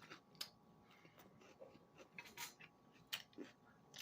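Faint chewing of crunchy cabbage salad with ranch: scattered soft crunches and wet mouth clicks.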